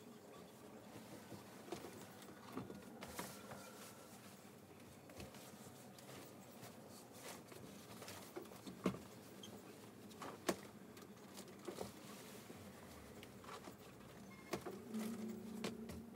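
Faint rustling of a comforter and sheets being straightened and smoothed over a bed, with scattered light taps and knocks.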